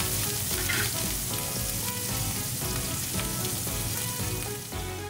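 Thin slices of A5 wagyu beef sizzling in hot fat in a pan as they sear, a steady hiss throughout.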